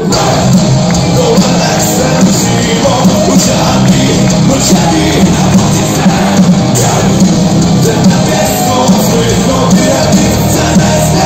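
Heavy metal band playing live through a loud festival PA, with a sung vocal over a steady pounding beat.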